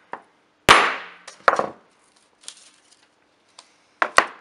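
A hammer striking a 16 mm hollow punch to cut round cartridge-base discs out of paper: two sharp blows with a short ringing decay, the first and loudest under a second in, the second about half a second later, with lighter knocks around them and two more sharp clicks near the end.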